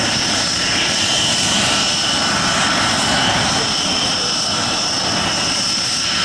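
AMX A-11 Ghibli's Rolls-Royce Spey turbofan idling on the ground: a steady high whine over a continuous jet hiss.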